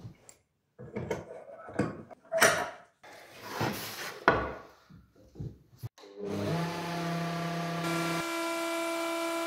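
Plywood pieces and a metal straightedge being knocked and slid about on a router table. About six seconds in, the table-mounted wood router starts, spins up and runs with a steady high whine as a plywood strip is fed over the bit to mill a groove.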